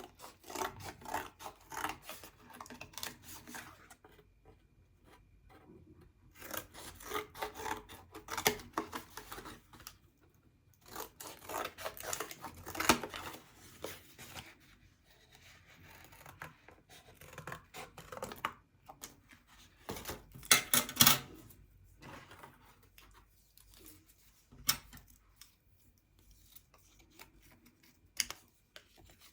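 Paper and cardboard being worked by hand: bursts of crackling, rustling and cutting sounds a few seconds long, with quieter pauses between them, the loudest a little past the middle.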